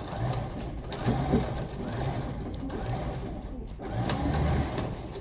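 An engine running steadily with a rhythmic mechanical clatter, with voices faint in the background.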